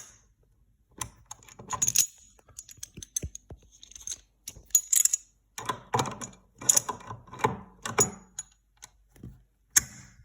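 Channel-lock pliers gripping and tightening a faucet's metal retaining nut: irregular clusters of sharp metallic clicks and clattering as the jaws bite, slip and reset on the nut.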